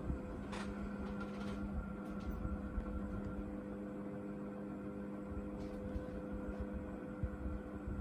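National F-560A1 56-inch industrial ceiling fan running, its motor giving a steady, even hum over a low rumble, rather than the uneven hum a dimmer-type regulator causes. A faint click about half a second in.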